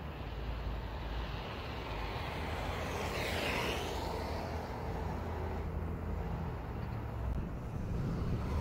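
Electric kick scooter riding past close by, about three and a half seconds in: its motor whine and tyre noise swell, then fall in pitch as it goes by, over a steady low rumble.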